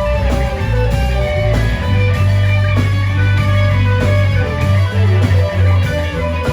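Live rock band playing: electric guitar lines with bent notes over a steady bass line and drums.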